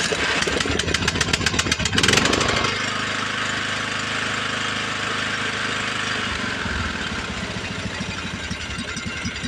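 Craftsman LT1000 riding lawn tractor's engine cranking on its starter for about two seconds, then catching and running steadily. It settles to a slower, pulsing idle about two-thirds of the way through. The mower that would not start now runs.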